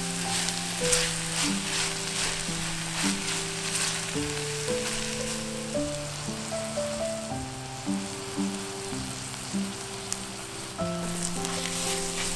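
Food sizzling in a hot frying pan, with scattered crackles, under background music that plays a melody of held notes.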